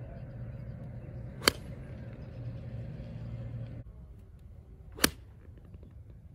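Two golf shots, each a single sharp crack of club face striking the ball: a tee shot about a second and a half in, then an iron shot off the fairway grass about five seconds in.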